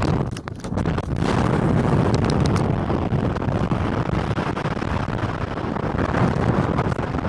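Wind buffeting the phone's microphone in a loud, continuous rumble, briefly easing about half a second in.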